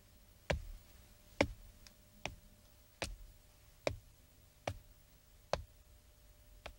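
Slow, measured footsteps on a hard floor, about one step a second, each a sharp thud, growing fainter toward the end.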